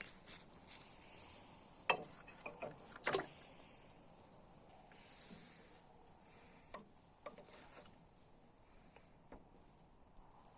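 Scattered light knocks and clicks over a faint steady hiss, several close together about two to three seconds in and a few single ones later.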